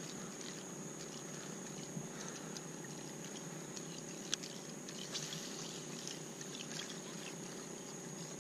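Water lapping and trickling softly against a plastic kayak hull on calm water, with a few faint ticks and a steady high-pitched whine.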